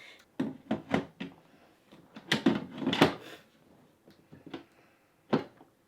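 Hard clunks and clicks of a Ninja Foodi multi-cooker's lid and parts being handled and fitted, about half a dozen separate knocks with a busier cluster around two to three seconds in.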